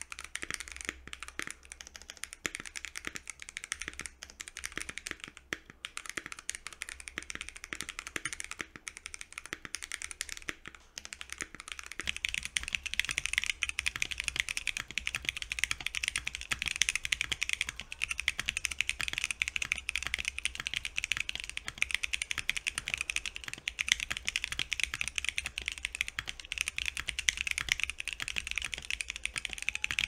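Steady, fast typing on a 65% mechanical keyboard with BBN Tactile switches and PBT keycaps. For the first twelve seconds it is a Tofu65 with lubed switches on a POM plate. Then it changes to a Portal keyboard with stock, unlubed switches on an FR4 plate, which types noticeably louder and brighter.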